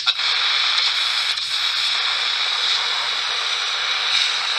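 Hitachi TH-620 pocket transistor radio, freshly recapped, playing a loud, steady hiss of static through its newly fitted speaker, with a click at the start.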